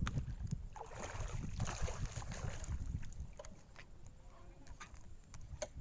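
Wind buffeting the microphone as a steady low rumble, with scattered small handling clicks and a brief rush of hiss about a second in.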